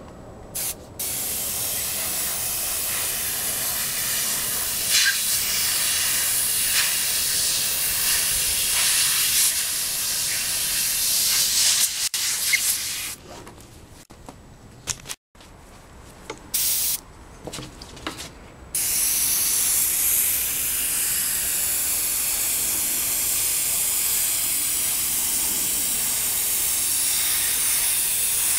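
Iwata airbrush spraying paint: a steady hiss of air that starts about a second in, breaks off for several seconds past the middle apart from a few short spurts, then resumes steadily. It is the third and last coat of paint going onto the wheel stripe.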